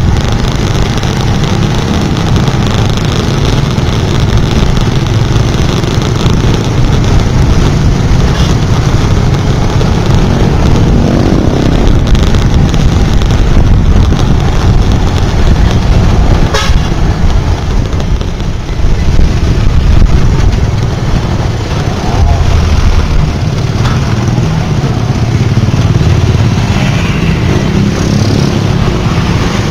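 Road noise from riding a motorbike in heavy traffic: a steady low rumble of engine and wind, with trucks and motorcycles around and a few short vehicle horn toots.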